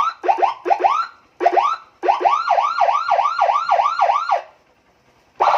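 Electronic 12-tone police-escort siren on a Honda Megapro motorcycle, driven through a 25-watt speaker, sounding loud quick rising whoops. First come a few separate chirps, then a fast run of about four a second, which stops. Near the end the siren switches to a steady harsh buzzing tone.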